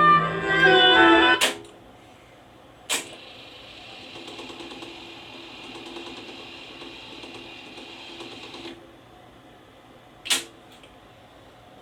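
Technics RS-676US stereo cassette deck: music playback cuts off with a clunk of a transport key about a second and a half in. Another clunk follows, then the transport runs with a steady whir for about six seconds and stops, and a last clunk comes near the end.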